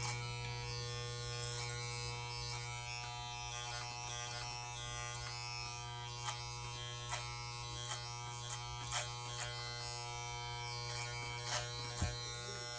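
Corded electric hair clippers running with a steady low buzz while cutting short hair on the side of a head, with a few faint ticks now and then.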